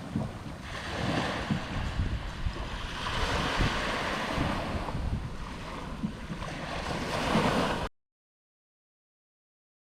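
Ocean surf washing on the shore, with wind buffeting the microphone; the sound cuts off abruptly to dead silence about eight seconds in.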